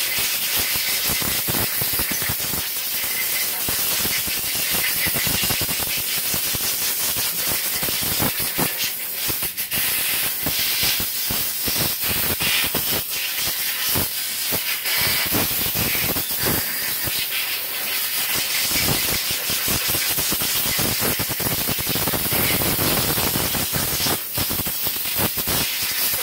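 Compressed-air blowgun blowing out the passages of a 4L60E transmission valve body: a loud, continuous hiss that wavers in strength.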